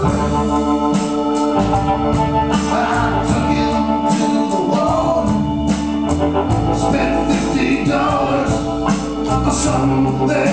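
Live band music: a hollow-body electric guitar and an upright bass over long, sustained organ chords.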